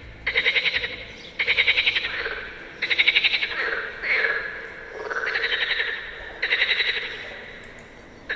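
Frogs croaking in a large rainwater-filled concrete tank, which makes them echo. The calls come one after another about every second and a half, each a fast rattle lasting about a second.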